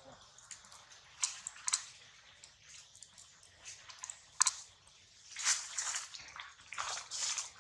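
Long-tailed macaque biting into and chewing soft, juicy fruit: several sharp, wet smacks, the loudest about four and a half seconds in, then longer squelching chews near the end.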